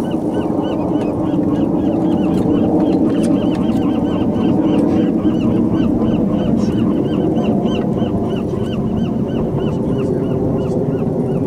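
Fishing reel being cranked steadily while fighting a fish, squeaking about three to four times a second, over a steady low rumble of wind and water.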